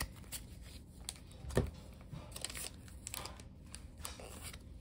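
Pokémon trading cards handled and shuffled between the hands: soft card slides and scattered light clicks, one sharper click about a second and a half in.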